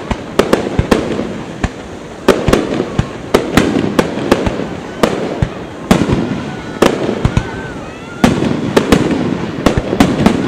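Fireworks going off in quick, irregular succession: sharp bangs of shells launching and bursting, several a second, over a continuous rumbling din.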